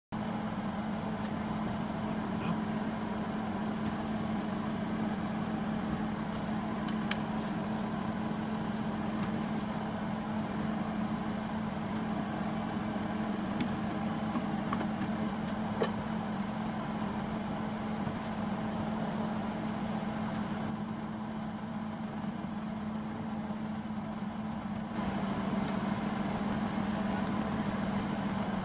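A car engine running steadily, with a constant low hum and a few faint clicks around the middle.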